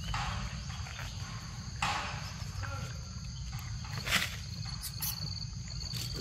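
Macaque eating a ripe mango: a few short munching and rustling noises, the loudest about four seconds in, over a steady high insect drone.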